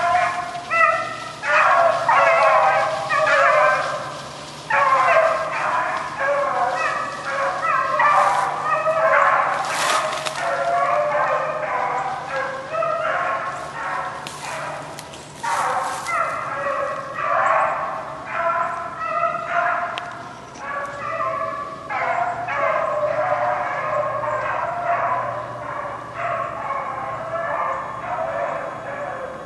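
A pack of rabbit hounds baying on a swamp rabbit's trail, several voices overlapping almost without a break and pausing only briefly a few times.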